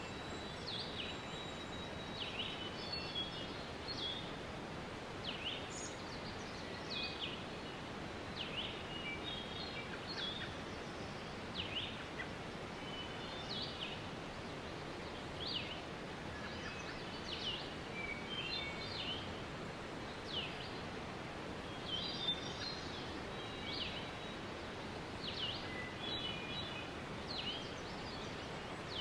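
Steady rushing of a waterfall, with birds calling over it: short calls that slide down in pitch, repeated every second or two, and quick twittering chirps between them.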